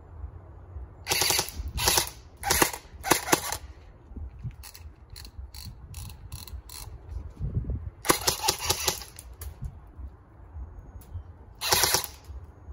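Lancer Tactical M4 SD electric airsoft rifle (AEG) firing on full auto: short bursts of rapid shots, four in quick succession in the first few seconds, then a longer burst about eight seconds in and another near the end, with scattered single clicks in between.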